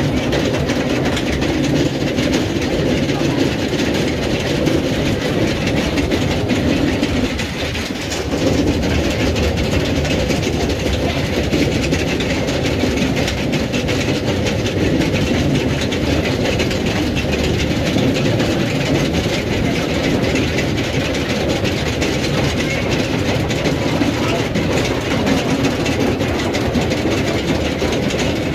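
X2 roller coaster train being hauled up its chain lift hill: a steady mechanical rattle of the lift chain with continuous clicking from the anti-rollback under the cars.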